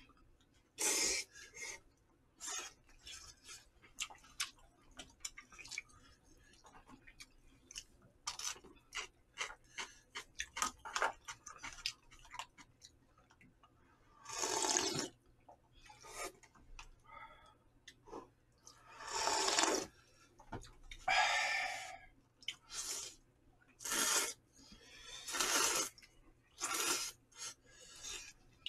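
Jjamppong (spicy Korean noodle soup) being eaten: noodles slurped and broth sipped from the bowl in wet slurps about a second long every few seconds, with chewing and small mouth clicks between.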